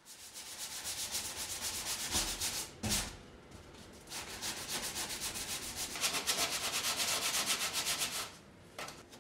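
Hand sanding of a car's primed steel body panels with a sanding sponge: quick back-and-forth rasping strokes. There is a brief knock about three seconds in, a short lull after it, and a pause near the end.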